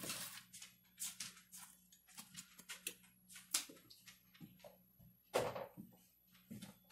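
Chopped leeks and carrots sizzling faintly in melted butter in a pot over medium-low heat: scattered, irregular pops and crackles a few times a second, with a louder pop about five and a half seconds in.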